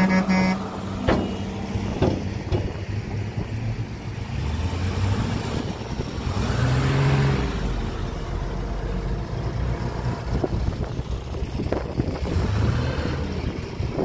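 Heavy diesel construction machinery engine running and revving up now and then, with a few sharp knocks.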